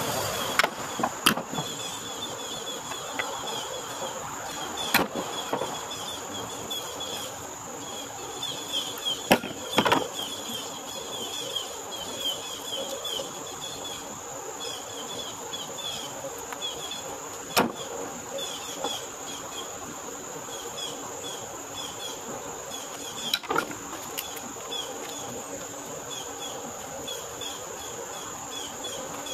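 Scrap lumber pieces knocking as they are picked up and tossed into a plastic bin: several sharp wooden knocks at irregular intervals. Under them runs a steady high insect drone with repeated chirps.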